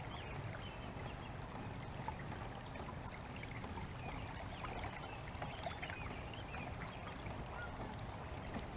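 Birds calling and chirping, many short calls scattered throughout, over a steady low rumble of water and wind.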